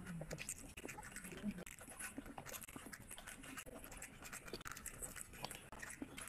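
Close-miked eating sounds: wet chewing, lip-smacking and mouth clicks as rice and curry are eaten by hand, with a couple of brief low hums.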